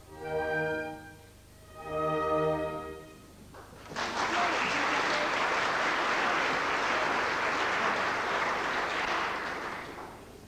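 The last held chords of an orchestral song accompaniment, then audience applause from about four seconds in, steady for several seconds and dying away near the end.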